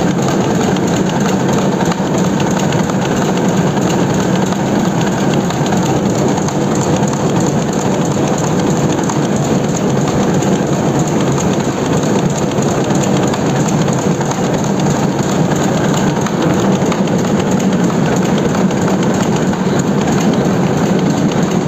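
Web-fed newspaper printing press running at speed, the paper web feeding through its rollers and folder: a loud, steady mechanical noise with no break.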